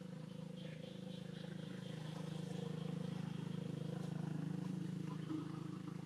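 A motor vehicle's engine running steadily as a low hum, growing a little louder toward the middle and easing off near the end.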